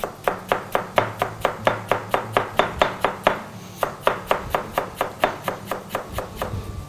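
Chef's knife rapidly shredding red cabbage on a plastic cutting board: quick, even chopping strokes, about five a second, with a short pause about halfway through.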